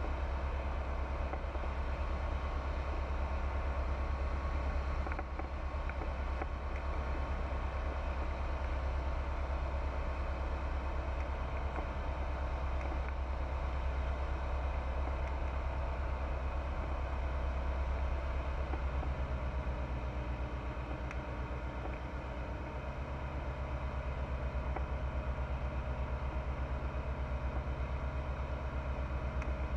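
Pipistrel Virus light aircraft's Rotax 912 engine and propeller droning steadily in flight. About two-thirds of the way through, the engine note shifts slightly and dips in level for a few seconds before settling again.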